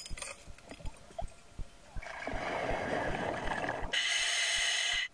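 Scuba diver breathing through a full-face-mask regulator underwater: a rush of exhaled bubbles from about two seconds in, then the higher hiss of an inhale through the demand valve, which cuts off sharply at the end.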